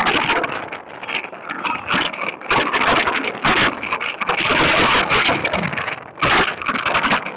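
Strong, gusty wind buffeting the microphone, loud and uneven, with brief drops in level between gusts.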